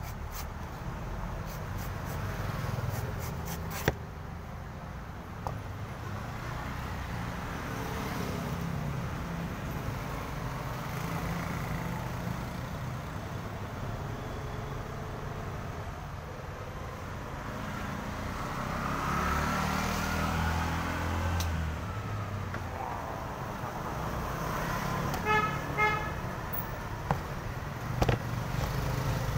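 Road traffic going by, with motor vehicles running and one swelling past about two-thirds of the way through, and a horn giving a quick series of beeps near the end. A few sharp knife clicks on the coconut husk.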